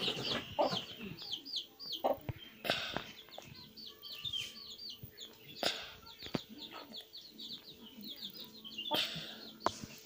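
Chickens calling: a continuous run of short, high chirping calls, several a second, with a few sharp knocks.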